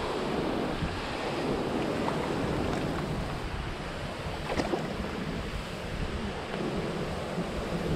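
Shallow creek water running steadily, with wind buffeting the microphone.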